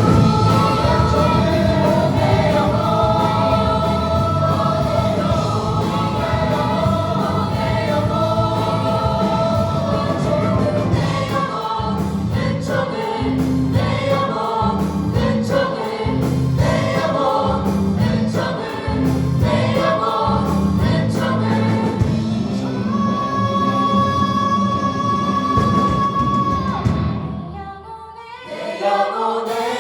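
Choir singing a gospel worship song with band accompaniment, a steady beat coming in partway through. Near the end a long held chord stops, and after a brief dip the music starts again.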